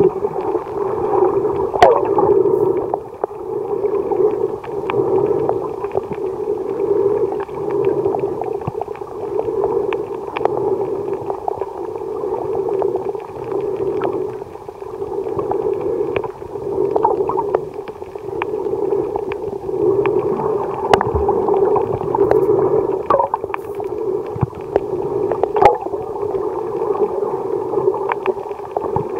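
Muffled underwater water noise picked up by a submerged camera: a low rushing and sloshing that swells and fades every second or two, with scattered sharp clicks.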